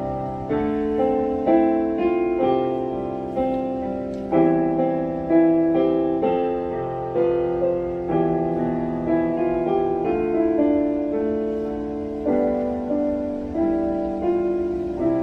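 Digital piano playing a slow piece in full chords, a new chord struck about once a second, each ringing on and fading before the next.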